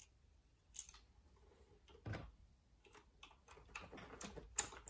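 Light plastic clicks and taps from a Bachmann class 66 OO gauge model locomotive being handled, its body shell just clipped back onto the chassis, with a duller knock about two seconds in and a quick run of sharper clicks near the end.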